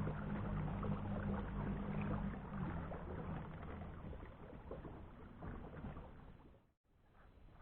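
Water splashing and lapping around a fishing kayak on the move, with a low hum fading out over the first few seconds. The sound cuts out for an instant near the end, then comes back quieter.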